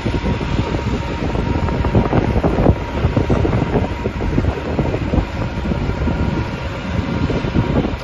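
Wind buffeting the microphone of a camera carried on a moving bicycle: a loud, gusty rumble that never lets up.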